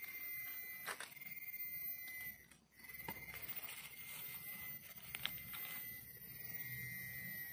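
Faint rustling and crackling of grass and dry leaf litter as a hand pulls a wild mushroom from the ground, with a couple of sharp clicks. A steady high-pitched tone sounds underneath.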